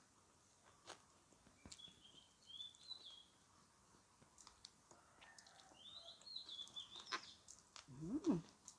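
A small bird chirping in two short runs of high notes, with scattered faint clicks. Near the end comes a brief low sound that rises and falls in pitch, the loudest moment.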